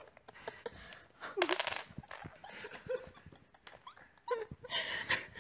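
A dog giving a few short whines and yips, among light clicks of wooden Jenga blocks, with a brief noisy clatter near the end.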